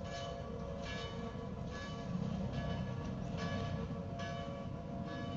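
A bell rung at a steady pace, about seven strokes roughly 0.8 seconds apart, each ringing on into the next. Under it is the low rumble of the Vitznau-Rigi rack railway train coming down the line.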